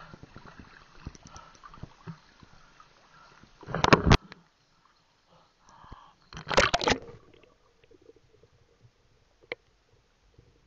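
Water splashing and sloshing against a handheld action camera at the surface, with two loud splashes about four and six and a half seconds in. After the second splash the camera is under water and it goes mostly quiet, with a few faint clicks.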